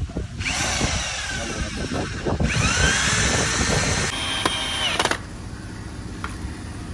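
Power drill working into wood in three short runs, its pitch dipping and recovering as it takes the load, then winding down and stopping about five seconds in.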